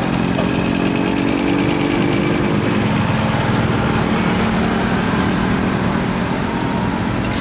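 Heavy diesel vehicles passing close by: a truck towing a trailer pulls away, then a Mercedes-Benz OH1521 tour coach drives past. A steady engine drone runs over road noise, and its pitch changes about three seconds in as the coach takes over.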